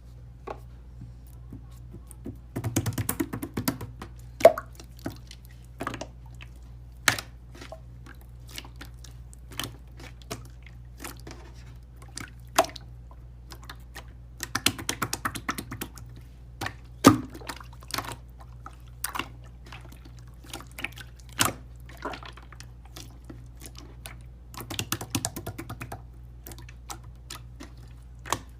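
Slime being squeezed and pressed close to the microphone: single wet clicks and pops every second or so, with three short runs of rapid crackling, over a steady low hum.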